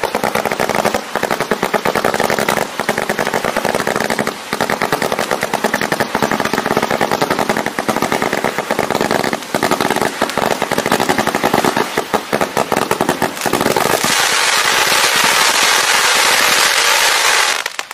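Multi-shot fireworks fan cake firing a rapid volley of shots, many a second, as it throws out fans of comets. About fourteen seconds in, the shots merge into a dense crackling rush from the crackling comet tails, which stops just before the end.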